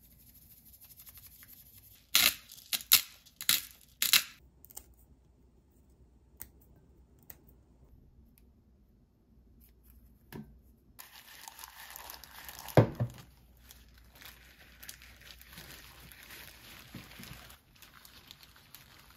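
Plastic bag crinkling steadily as a raw whole chicken is massaged with herb and oil marinade inside it, starting suddenly past the middle, with one loud thud soon after. Earlier there are a handful of sharp clicks from seasoning being shaken into a bowl of olive oil, then only small ticks while herbs are stripped in.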